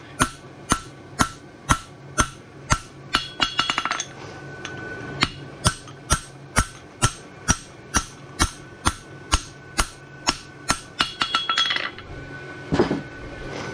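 Farrier's hammer striking a steel horseshoe on the anvil at about two blows a second, each blow ringing. Twice, about three seconds in and near eleven seconds, the blows give way to a quick run of light taps.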